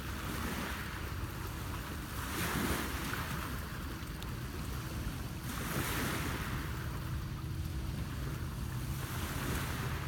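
Small Lake Ontario waves washing against a rocky shoreline, swelling four times a few seconds apart, over a low steady rumble.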